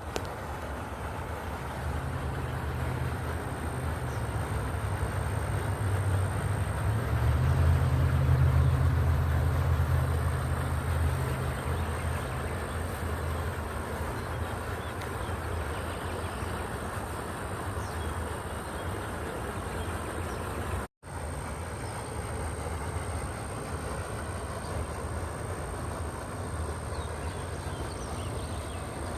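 American alligator bellowing in mating season: a deep low rumble that builds over several seconds, is loudest a little under halfway through, and fades away by about twelve seconds in.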